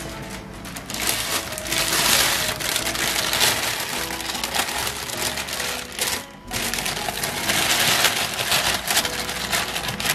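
Meat frying in a pan, with dense sizzling and crackling over background music; the sizzle briefly drops out about six seconds in.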